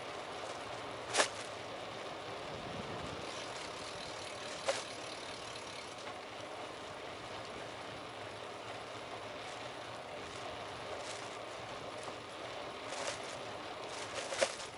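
Steady hiss of street and riding noise from a bicycle moving along a city street. Sharp rattles come about a second in, again near five seconds, and several in a cluster near the end.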